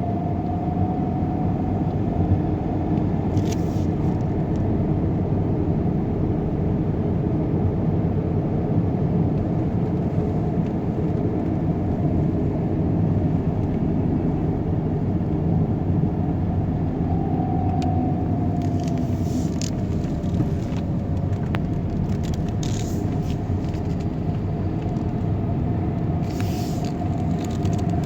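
Steady low rumble of a moving vehicle, with a faint tone that slides down in pitch about two-thirds of the way through and a few brief high ticks.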